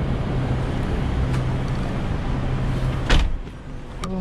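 Street traffic noise and a taxi's idling engine hum, then a car door slammed shut about three seconds in. After the slam the outside noise drops to the muffled quiet of the cabin, and a lighter click comes about a second later.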